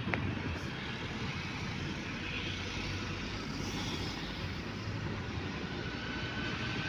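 Moving car heard from inside the cabin: a steady low rumble of engine and road noise.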